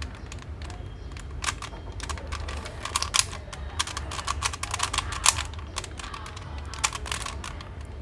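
Plastic clicking and clacking of a Latch Cube twisty puzzle being twisted in the hands. The irregular sharp clicks come several a second, with a few louder clacks, as faces are tried and jam against the puzzle's one-way latches.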